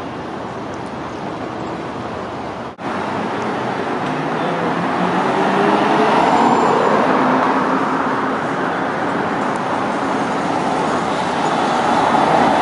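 Steady city street traffic noise. After a sudden cut about three seconds in, a Tatra T3 tram and cars pass on the road, and the noise swells, with a faint gliding whine underneath.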